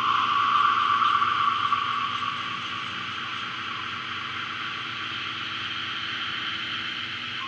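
A steady hiss-like noise with no words or tune, a little louder for the first two seconds.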